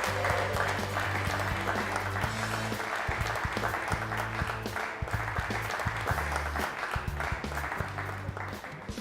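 Audience applauding, a dense, even patter of clapping, over background music with a bass line. The clapping eases slightly near the end.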